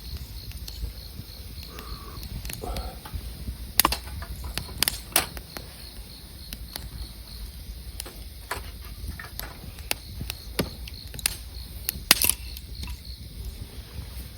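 Wood campfire crackling, with sharp irregular pops over a low rumble of the burning fire. An insect chirps faintly and evenly throughout.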